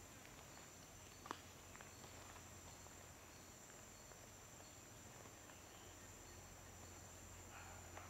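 Faint, steady high-pitched insect drone, with one sharp click about a second in.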